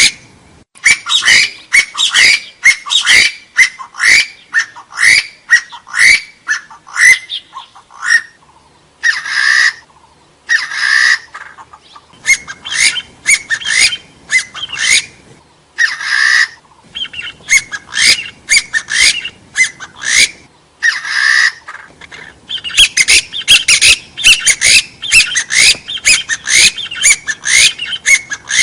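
Hill partridge (gà so) calling: a fast run of short upslurred whistled notes, about three a second, broken four times by a longer harsh squawking note.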